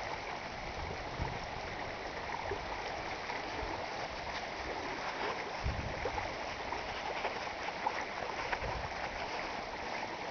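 Shallow, muddy flash-flood water running down a gravel desert wash: a steady rush of flowing water, the first flow of a flash flood filling the dry wash.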